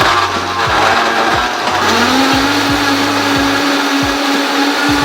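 Vitamix blender motor running, blending a smoothie of fruit, juice and yogurt. About two seconds in its pitch rises, then holds steady.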